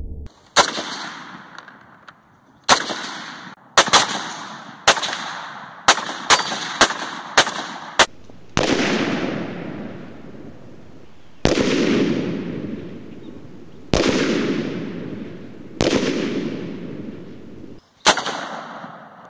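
Rifle shots from a Springfield Armory M1A in 7.62x51 NATO, fired semi-automatic: about a dozen sharp cracks at uneven intervals, several in quick succession. Then four louder reports, each echoing away over a couple of seconds, and one last crack near the end.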